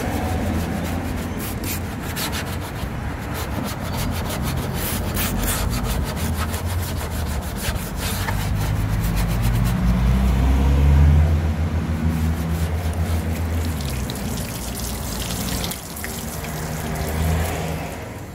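Soft-bristle detailing brush scrubbing soapy car paint and trim in rapid back-and-forth strokes, agitating wheel-cleaner foam to lift grime.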